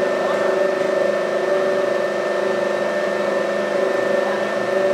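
Audi R8 LMS race car's V10 engine idling steadily during its warm-up.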